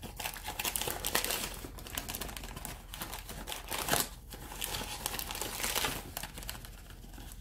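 Crinkling and rustling of packaging while a measuring spoon scoops cornstarch, with scattered light clicks and a sharper one about four seconds in.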